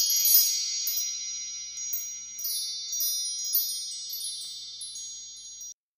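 A shimmering run of high chimes: notes struck one after another, each ringing on under the next, louder at the first strikes and fading, then cut off abruptly near the end.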